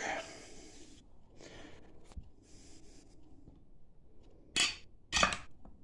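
Handling noises of wooden chair parts and tools: faint rustling and scraping, then two short, louder knocks about half a second apart near the end.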